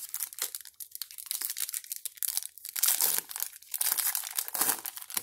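Foil wrapper of a trading-card pack being torn open and crinkled by hand, an irregular crackling rustle that comes in bursts, loudest in the second half.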